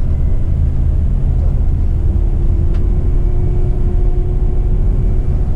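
Moving tour coach heard from inside the cabin: a steady engine drone and low road rumble, with a faint steady hum coming in about two seconds in.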